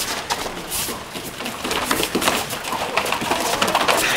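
Scuffling of karate sparring on mats: a rapid series of short thuds and scuffs from feet, blows and gi fabric, growing busier about halfway through, with a few short high-pitched sounds among them.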